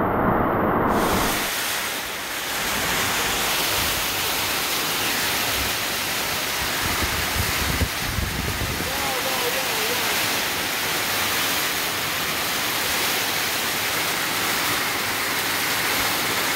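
Very strong rain pouring down in a steady, even rush.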